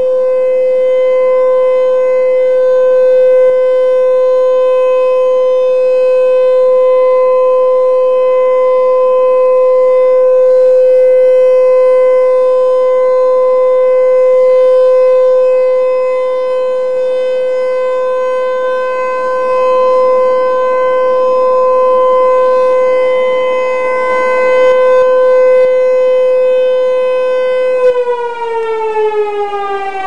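Outdoor tornado warning siren sounding loud and close during its scheduled test: one steady tone, then near the end the pitch starts to fall as the siren winds down.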